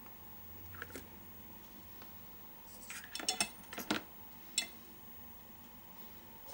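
Light clatter of homemade coil formers (tubes wrapped in wire and tape) knocking against one another as one is lifted out of a pile by hand: a faint click about a second in, a quick run of knocks around the middle, and one last click shortly after.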